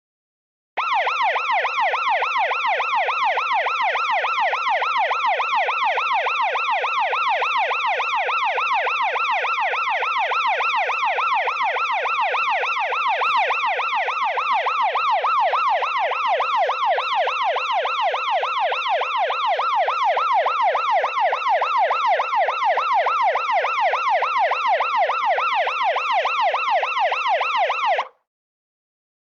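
Police siren sounding a fast yelp: a quickly repeating rising-and-falling tone, several sweeps a second, steady and loud. It starts just under a second in and cuts off suddenly about a second before the end.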